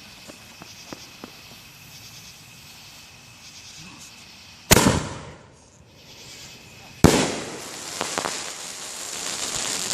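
Consumer fireworks going off: a sharp bang about five seconds in and a second about seven seconds in, the second followed by a steady hissing crackle that grows louder toward the end.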